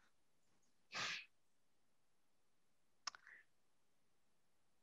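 Near silence in a pause of conversation, broken by a short breath about a second in and a small mouth click about three seconds in.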